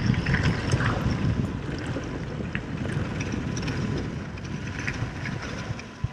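Wind buffeting the microphone and mountain bike tyres rolling over gravel and dirt at speed, with small scattered rattles and clicks from the bike and stones. The noise eases off near the end as the bike slows.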